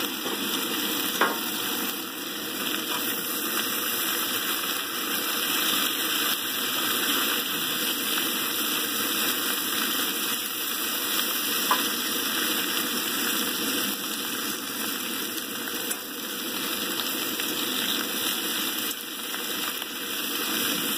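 Diced onion, potato and pepper frying steadily in a cast iron skillet over a Coleman propane camp stove, sizzling as they are stirred, with two sharp clicks of the utensil against the pan, about a second in and about halfway through.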